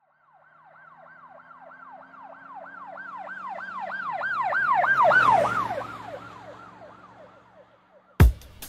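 Emergency vehicle siren sweeping rapidly, about three times a second, over a low engine hum. It grows louder, passes with a slight drop in pitch, and fades away. Near the end a single sharp drum hit marks the start of the music.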